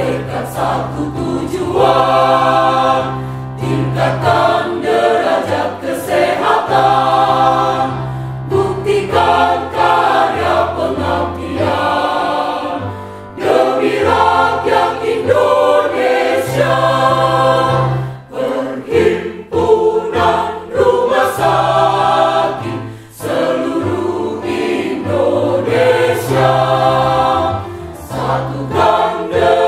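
Mixed choir of men's and women's voices singing a part-song under a conductor, over steady low notes held for a few seconds at a time.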